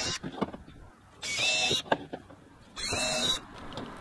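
Cordless drill running in short bursts with a steady whine, boring the filter-stem holes through a black plastic bucket lid with a 15/32-inch bit. Light plastic knocks and rattles come between the bursts.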